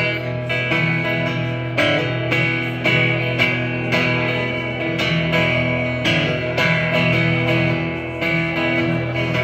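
Solo acoustic guitar strummed in an instrumental break of a slow country ballad, with no singing. The chords ring on between steady strokes about twice a second.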